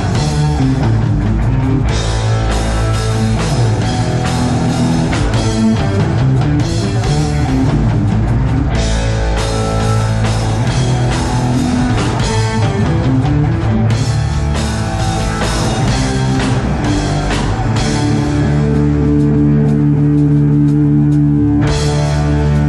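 Rock band playing live, with guitars and a drum kit. About three quarters of the way through, the drums drop back under a held guitar chord, and the cymbals crash back in near the end.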